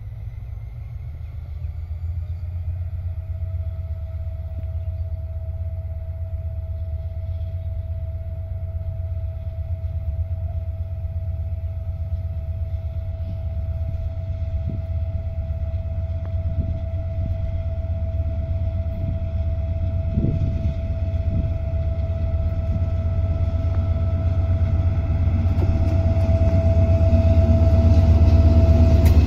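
Diesel locomotive hauling a passenger train, its engine running with a low rumble and a steady whine, growing steadily louder as the train approaches and draws close near the end.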